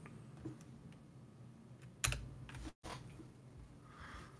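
Faint computer keyboard clicks over low room noise, with one louder knock about two seconds in.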